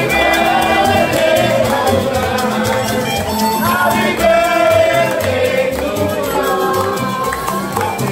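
Small live band of acoustic guitars and double bass playing with a sung melody, in a Latin rhythm, with hands clapping along to the beat.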